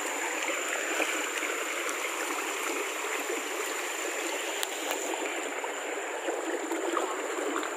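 Shallow river water flowing steadily over rocks.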